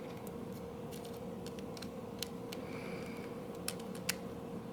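Light clicks and taps of small camera body parts being handled and pressed back together, a dozen or so scattered irregularly, over a steady low hum.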